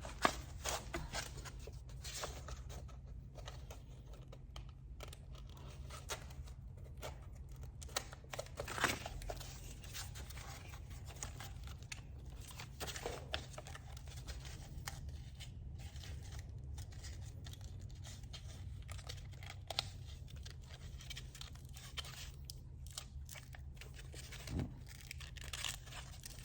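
Sandpaper being torn and handled while the sheet on a small hand sander is changed: scattered rips, crinkles and clicks, over a steady low hum.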